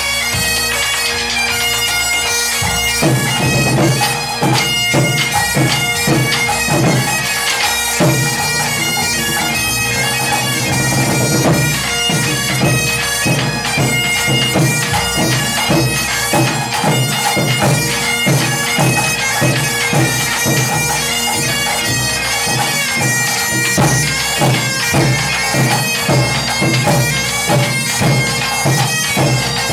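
Breton bagad playing dance music: bagpipes carry the melody over a steady drone, backed by fast, continuous drumming on snare, toms and cymbals.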